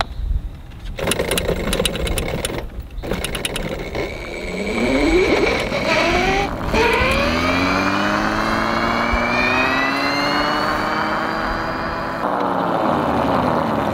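Electric quad bike's brushless motor, fed by a sensorless speed controller, stuttering with rapid clicks as it struggles to get going from a stop; the controller cannot tell where the motor is, so the start is not smooth. About four seconds in it becomes a whine rising in pitch as the bike accelerates away, dips briefly, then rises again.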